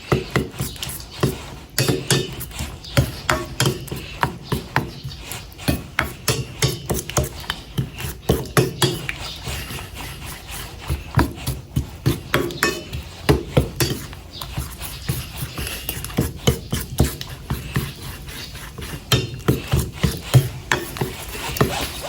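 Utensil beating flour-and-egg batter in a bowl to break up the lumps: quick, irregular clicks of the utensil striking the bowl, with short pauses.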